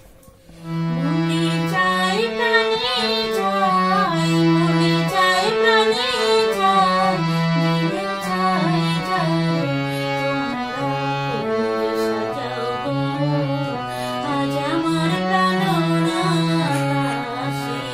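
Harmonium playing a Bengali folk melody in held notes that step from pitch to pitch, starting about a second in, with a woman singing along.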